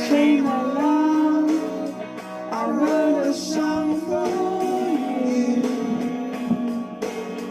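A voice singing long held notes over an acoustic guitar.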